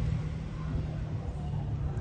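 Low, steady rumble of a vehicle engine running.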